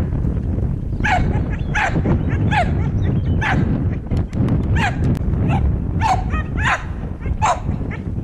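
A dog barking repeatedly, about nine short, high barks, each dropping in pitch, over a steady low rumble of wind on the microphone.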